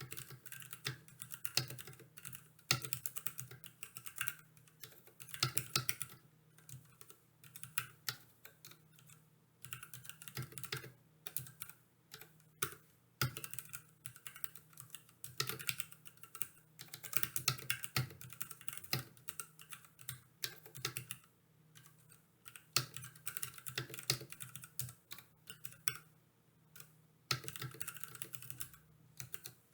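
Typing on a Ducky Mecha SF mechanical keyboard: runs of quick key clicks broken by short pauses.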